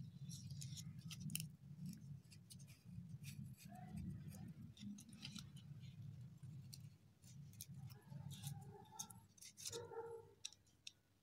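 Faint scratching and clicking of fingers handling and turning an acrylic trial denture base, over a steady low hum.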